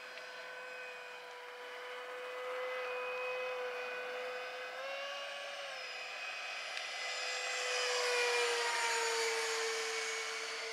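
Electric ducted fan of a Durafly de Havilland Vampire RC jet whining steadily in flight. The pitch steps up briefly about five seconds in, then the whine grows loudest and slides a little lower in pitch as the jet passes, about eight seconds in.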